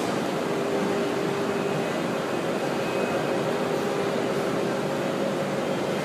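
Electric lift motor of a remote-controlled bed frame running with a steady hum.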